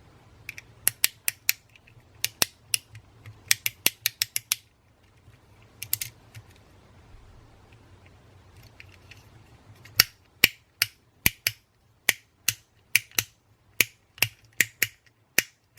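Plastic fidget-pad controls clicking sharply: quick clusters of clicks in the first few seconds, then a steadier run of about two clicks a second from about ten seconds in.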